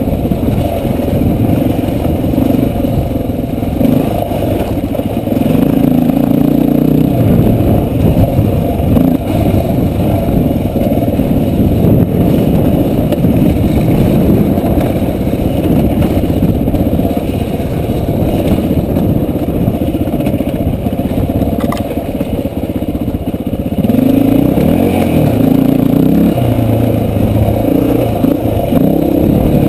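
Dirt bike engine running as the bike is ridden over a rough, rocky trail, the revs rising and falling, louder for a few seconds near the start and again over the last few seconds.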